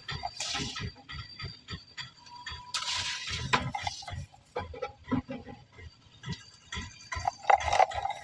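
Dry cement balls being crushed and crumbled: scattered crackles and crunches, with brief bursts of gritty crumbling about half a second in, around three seconds and near the end.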